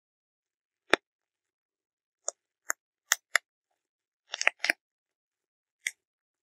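Air bubble wrap cells popping one at a time as fingers squeeze them: about ten sharp pops at irregular intervals, the first about a second in, with a quick cluster of several pops around four and a half seconds in.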